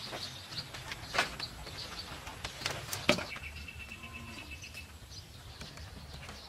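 Birds chirping in the background, with two sharp knocks of bamboo poles being handled, about a second in and about three seconds in. A thin steady whistle-like tone is held for about a second and a half near the middle.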